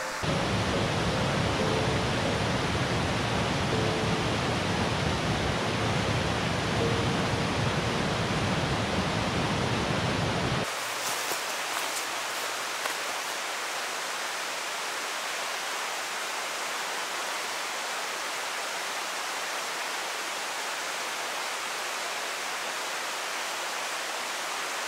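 Steady rushing water of a mountain creek. About ten seconds in it cuts abruptly to a thinner, higher hiss with the deep rumble gone.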